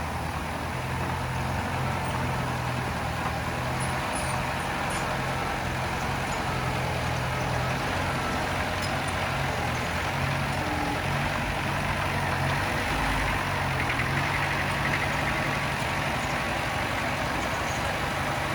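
Heavy-equipment diesel engine running steadily at an even pitch.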